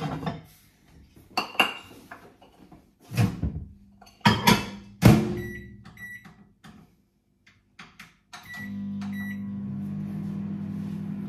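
Plates and crockery clattering, a few sharp knocks over the first five seconds. Then a microwave oven's keypad beeps several times, and about eight and a half seconds in the microwave starts running with a steady hum.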